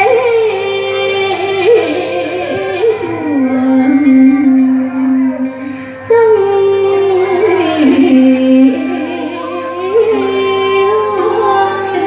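Music for a dance: a slow melody of long held notes that slide from one pitch to the next, over an accompaniment.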